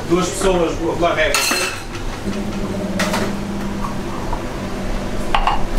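Metal kitchen utensils and steel trays clinking and knocking, with a few sharp clinks. A steady low hum comes in about two seconds in.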